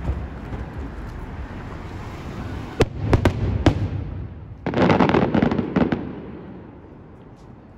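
Aerial fireworks display: a steady low rumble of shell bursts, then three sharp bangs about three seconds in. Around five seconds a dense run of rapid pops follows, dying away toward the end.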